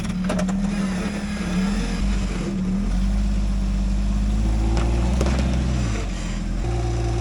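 Engine of an off-road rig running at low crawling speed, its pitch shifting as the throttle changes, with a few sharp knocks near the start and about five seconds in.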